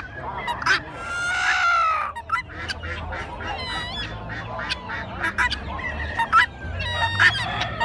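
Caged poultry calling: one long call about a second in, then shorter calls and many sharp clicks, with more calls near the end.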